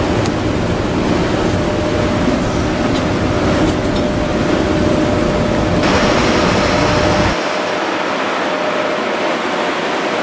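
JNR Class EF81 electric locomotive standing at the platform with its equipment running: a loud steady mechanical hum and rush of air with a low rumble. About seven seconds in the sound drops abruptly to a quieter steady hum without the rumble.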